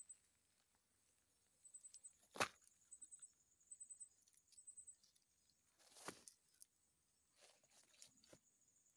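Quiet woodland ambience: faint high-pitched chirping repeats in short bursts, with a single sharp snap about two and a half seconds in and a short rustle about six seconds in.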